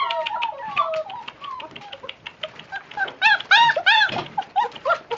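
A litter of five-week-old black German Shepherd puppies whining and yelping together in many short, high cries that rise and fall, most intense about three seconds in: hungry puppies impatient for their food. Scattered clicks and rustles run underneath.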